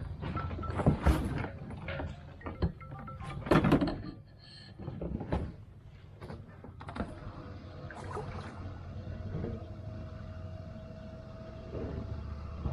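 Irregular knocks and clunks of gear being handled aboard a small trimaran sailboat, the loudest about one and three and a half seconds in, over a low rumble of wind on the microphone. A faint steady hum comes in during the second half.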